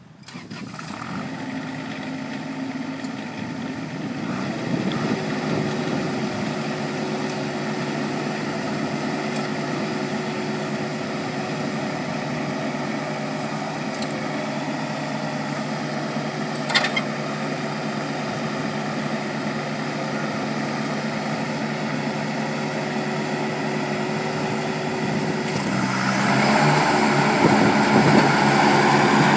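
Toro Groundsmaster 3500-D ride-on rotary mower's diesel engine running steadily as the mower is driven slowly. There is a single short click partway through. About four seconds from the end the engine gets louder and harsher.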